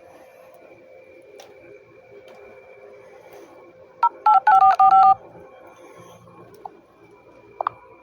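A quick run of about five phone keypad tones (two-note dialing beeps) about four seconds in, lasting about a second, over a faint steady hum. Two short faint chirps follow near the end.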